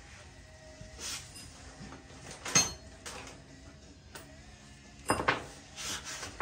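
Metal hand tools clinking and clanking as they are picked through while a hammer is fetched: a few separate knocks with a short metallic ring, the loudest about two and a half seconds in and a quick cluster about five seconds in.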